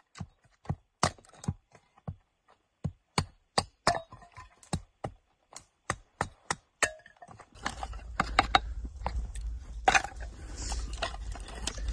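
Dry wood cracking and knocking in quick, irregular sharp strokes, about two or three a second, as firewood is broken up for a campfire. From about seven and a half seconds in, wind rumble on the microphone runs under more knocks.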